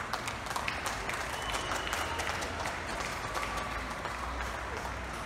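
Many people clapping at once from the windows of the surrounding apartment blocks: a steady, scattered patter of claps, with a few short calls of cheering over it.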